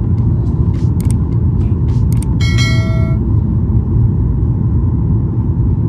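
Airliner cabin noise in flight: a loud, steady low rumble of jet engines and airflow. About two and a half seconds in, a short bell-like chime sounds, preceded by a few light clicks.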